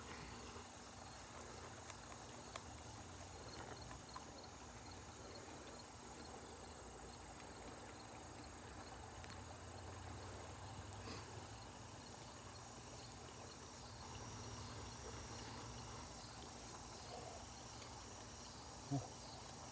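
Faint steady chirping of insects, an even high pulsing, with a few small clicks and a short knock near the end.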